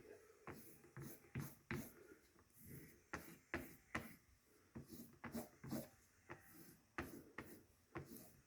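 Faint, irregular clicks and scuffs, one or two a second, of small objects such as a knife and paper being handled on a workbench.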